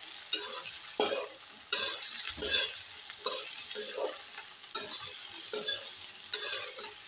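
Sliced onions, garlic and green chillies sizzling in hot oil in a metal kadhai while a metal spatula stirs them, scraping the pan in regular strokes about every three quarters of a second.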